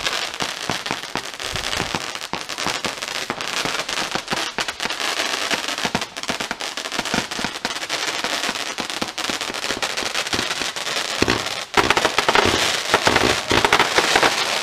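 A 96-shot World Class "Motor Mouth" fireworks cake firing in rapid succession: a dense, continuous stream of shots whose flaming balls break with crackling reports, growing louder over the last few seconds before it ends.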